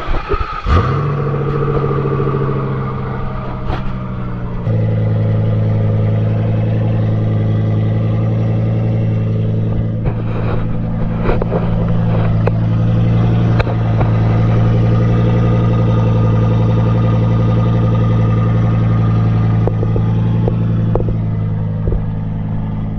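Ford's engine started cold: it catches about a second in, then runs at a steady idle. Near the five-second mark the idle note steps lower and gets louder, as it is left to warm up.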